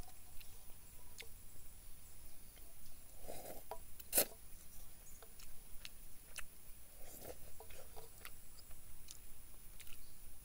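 A spoon tapping and scraping in a metal camp pot while a man eats from it, with quiet chewing; scattered small clicks, the sharpest about four seconds in.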